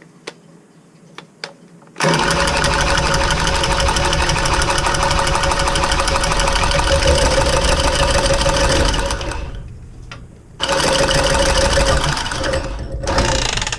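Electric power tool motor running hard in two long bursts: about seven seconds from two seconds in, a short stop, then about two and a half seconds more, with a steady whine over a fast, rattling texture.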